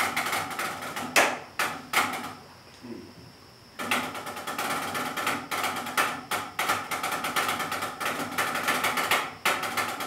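Wooden drumsticks striking a drum practice pad: a few sharp hits, a pause of about a second and a half, then a long run of fast, dense taps with a brief break near the end.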